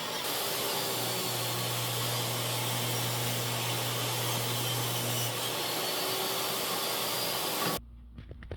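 Power saw running and cutting through wood: a steady, loud whirring noise that cuts off abruptly near the end, followed by a few light knocks.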